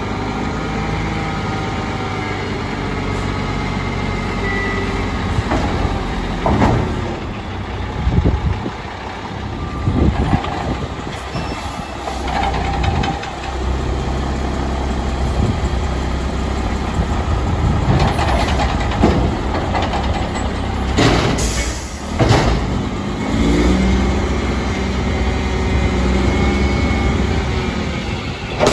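Diesel engine of a Mack MR front-loader garbage truck with a McNeilus Atlantic body, running and changing pitch as it revs, with several loud bangs and clanks through the middle and later part.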